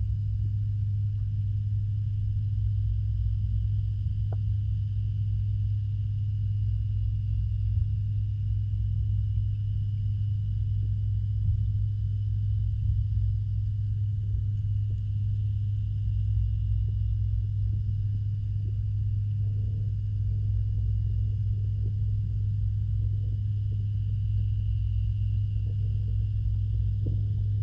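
Steady low hum and rumble of a pond's filtration pump, heard through the water, with faint soft ticks in the later part.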